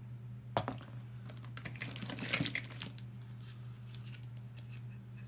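Small plastic toys being handled and rummaged through in a box: a sharp knock about half a second in, then a couple of seconds of rustling and clattering, over a steady low hum.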